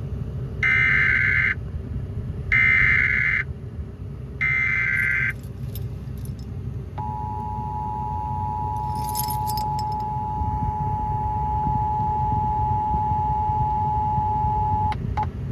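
Emergency Alert System tones on FM radio: three one-second bursts of SAME header data, each a buzzing, warbling digital tone, then the steady two-tone attention signal held for about eight seconds before it cuts off. Together they announce an emergency alert, here a severe thunderstorm warning.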